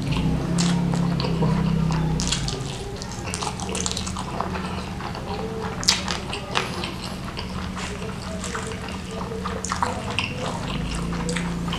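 A person chewing a mouthful of rice with squid sambal close to the microphone: wet chewing with many short clicks and smacks of lips and teeth.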